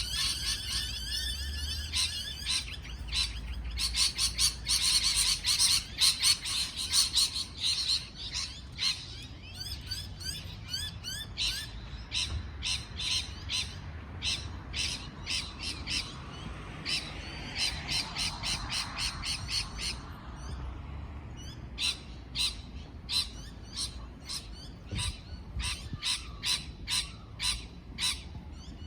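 Parrots chirping and squawking: fast runs of short, high calls that come and go, with single chirps repeated between them.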